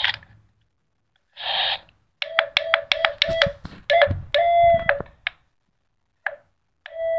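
Toy walkie-talkie's Morse code button sending electronic beep tones: a short hiss of static, then a string of beeps, several short ones in quick succession followed by a few longer ones with pauses between.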